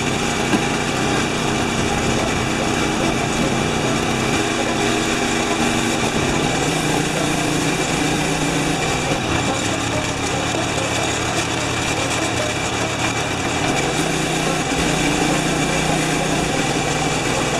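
Small gasoline engine of a cart-mounted pressure washer running steadily under load, with the hiss of the high-pressure water spray.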